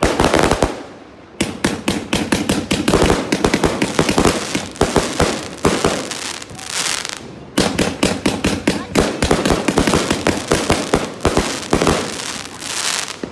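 A 214-shot zig-zag fireworks cake firing rapid volleys of shots and bursts, many per second, with a short lull about six seconds in before the firing picks up again.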